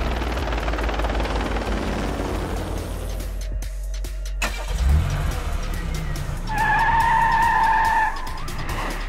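Film-style car sound effects: a low rumble that drops out briefly about four seconds in, a thump about a second later, then a car's tires squealing in one steady high squeal for about a second and a half near the end.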